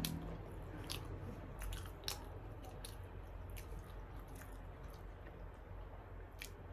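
Close-miked chewing: soft, wet mouth clicks and smacks of food being chewed, a few to a second and uneven, over a faint low hum.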